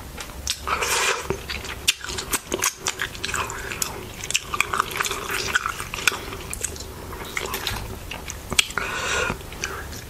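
Close-miked chewing of a burrito, with wet mouth clicks and smacks, and another bite taken near the end.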